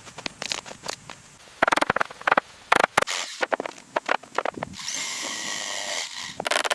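Work-site tool sounds: a run of sharp clicks and knocks, then a power tool running steadily for about a second and a half near the end.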